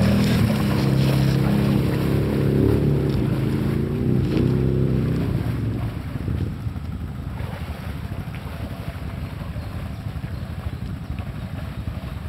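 Quad (ATV) engine running under load as it drives through deep water, its pitch rising briefly about four and a half seconds in, then fading out at about six seconds. A steady rushing noise of water and wind follows.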